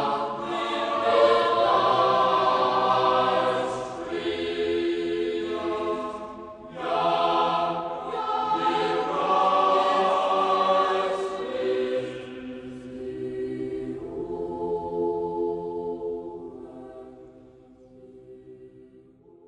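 Choir singing slow, held phrases, with short breaks between them, fading out over the last few seconds.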